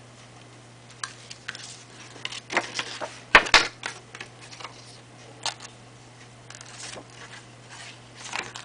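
Cardstock card being picked up and handled by hand: scattered paper rustles and light taps, with two sharp clicks close together about three and a half seconds in, over a steady low hum.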